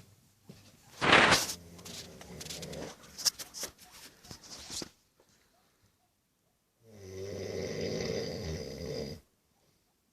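A young man snoring in his sleep. About a second in, a loud snore starts suddenly and breaks up into a few seconds of irregular rattling breath. After a pause of about two seconds comes one long, even, rattling snore.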